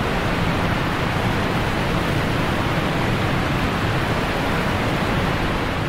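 Steady, unbroken rushing of water, like surf, at an even level throughout.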